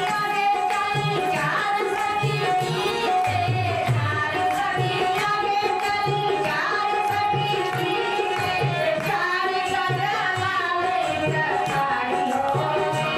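Devotional bhajan music: a hand drum beats a steady rhythm under singing, over a held steady tone.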